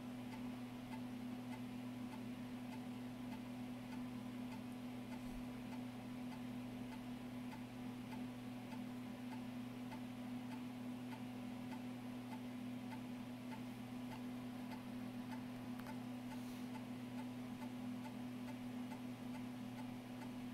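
Macintosh TV's 3.5-inch floppy drive formatting a disk: the head steps track by track in a long run of soft, evenly spaced ticks, over a steady low hum.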